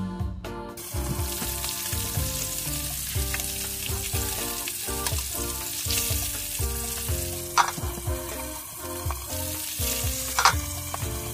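Fish fillets sizzling as they fry in oil in a pan, the hiss opening up about a second in as the cover comes off, with a spatula stirring and two sharp clinks later on, over background music.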